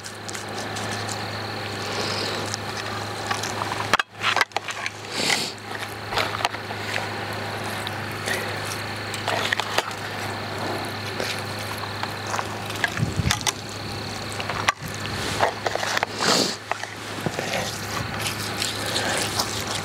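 Rustling, crackling and rubbing of hands working a dried-and-fresh herb mix into a rib roast, over a steady low hum.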